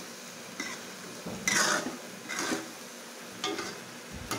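Metal spatula stirring and scraping thick chili sauce in an aluminium wok, in four or five short strokes, the loudest about a second and a half in, over a faint sizzle. A sharp clink comes near the end.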